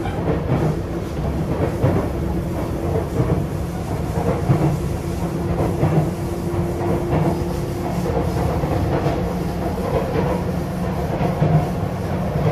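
Sotetsu 8000 series electric train running at speed: a steady rumble of wheels on rail, with repeated clacks as the wheels cross rail joints. A steady humming tone from the Hitachi IGBT inverter drive holds for several seconds partway through.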